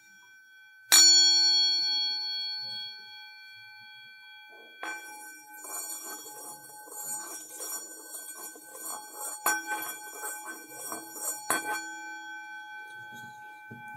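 Metal singing bowl struck once with its mallet about a second in, ringing with several steady overtones that slowly fade. From about five seconds the mallet is worked around the rim, a rough rubbing under a renewed, sustained ring, with two more light knocks near the end.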